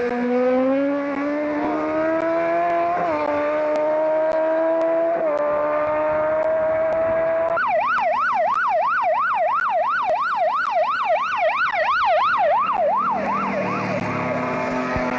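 A competition car's engine pulling hard through the gears, its pitch climbing with two short dips at the gear changes. About halfway through, a siren takes over, yelping rapidly up and down for several seconds before fading.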